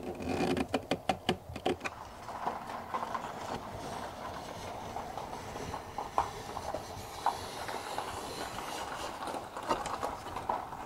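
Screwdriver turning screws into a plastic RV door-window frame, a quick run of sharp clicks for about two seconds. Then a steady rushing noise with a few light taps as the frame is worked by hand.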